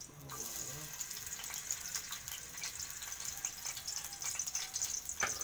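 An egg frying in hot oil in a pan: a steady sizzle with many small crackles, and one sharper click near the end.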